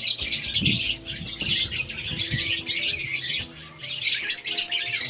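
Young parrot chicks chirping rapidly and nearly without pause, the raspy begging calls of hand-fed nestlings, with a short break about three and a half seconds in.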